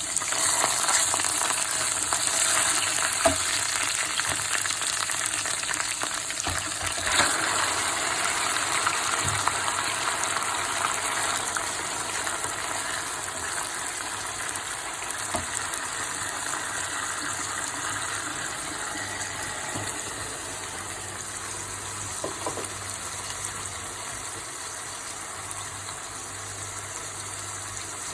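Chicken frying in hot oil, a steady sizzle that slowly dies down, with a few clicks of a utensil against the pan.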